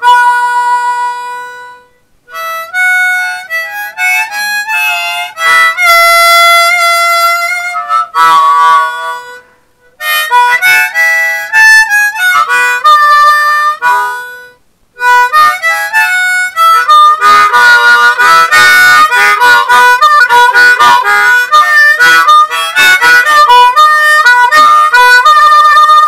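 Harmonica music played in phrases with short pauses, getting busier with quick runs of notes in the last third.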